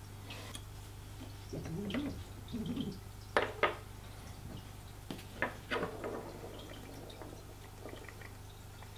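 Metal telescope focuser and focus motor being handled on a wooden table: a few sharp clicks and knocks, the loudest a pair about three and a half seconds in, over a steady low hum. A short low wavering sound comes before them, about two seconds in.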